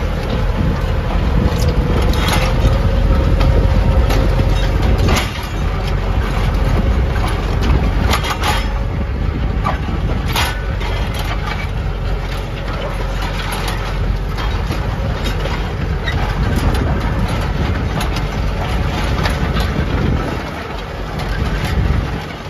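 Lovol 504 diesel tractor engine running steadily under load while pulling a two-bottom plough through the soil, with several sharp knocks and clatters along the way.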